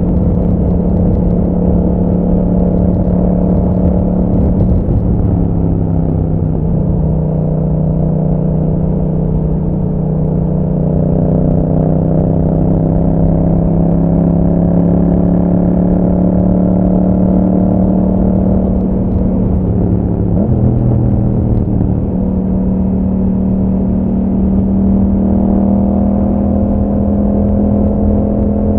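2021 Yamaha MT-07's 689 cc parallel-twin engine running through an Akrapovic exhaust while riding at a fairly steady speed. The engine note eases down a little about five seconds in and changes pitch abruptly about twenty seconds in.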